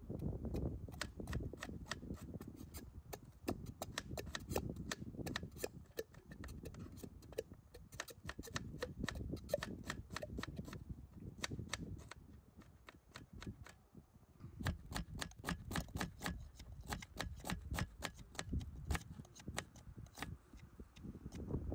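Rapid, irregular crackling: sharp pops several times a second over a low rumble, easing off for a few seconds midway, then coming back.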